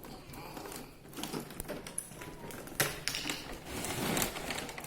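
Toy packaging being pulled open by hand: cardboard and plastic rustling, with scattered sharp clicks and crackles.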